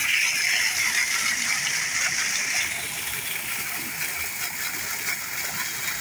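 Steady rushing and splashing water in a koi pond crowded with koi churning the surface, a little louder for the first couple of seconds.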